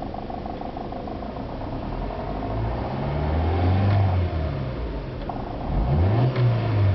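Warm Honda B16A2 1.6-litre DOHC VTEC four-cylinder engine idling with a fast, even ticking knock, then revved up and back down twice. The owner notes the knock is heard only when the engine is firing.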